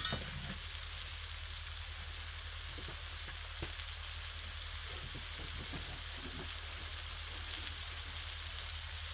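Thinly sliced ribeye, onion and peppers sizzling steadily on an electric griddle, a constant hiss dotted with small crackles and pops.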